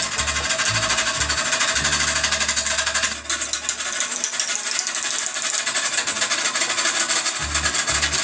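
A turning gouge cutting into the face of a spinning olive wood bowl blank on a wood lathe: a loud, harsh scraping cut with rapid, even ticking, broken briefly about three seconds in. Background music with a bass line plays underneath.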